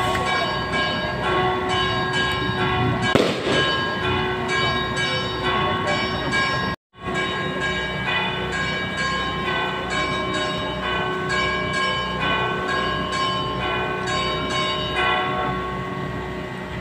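Church bells ringing on and on, their strikes overlapping in a loud peal. A single sharp bang cuts through about three seconds in, and the sound drops out for a moment about halfway through.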